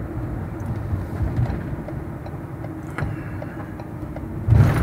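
Steady low rumble of road and engine noise inside a vehicle's cab while it drives at highway speed. There is a brief click about three seconds in, and a louder rush of noise near the end.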